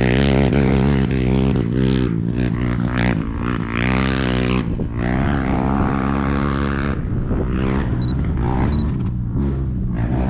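Off-road motorcycle and ATV engines revving up and down on the race course, their pitch rising and falling again and again, with several engines overlapping.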